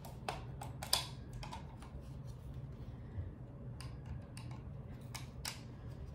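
Light plastic clicks and snaps from a Dell KM7321W wireless mouse as its top shell is pried off and handled, opening the battery and dongle compartment. About a dozen small clicks, the sharpest about a second in.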